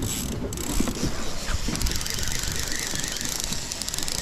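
Baitcasting reel being cranked to wind a fishing line in: a fast, fine ticking whir that starts about halfway through.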